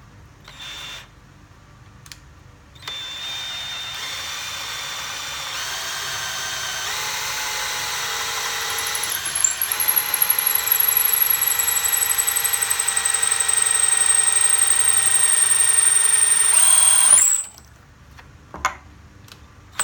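DeWALT DCD700 cordless drill drilling. After a short trigger blip about a second in, it runs continuously for about fourteen seconds with a steady high whine that grows gradually louder, then stops abruptly.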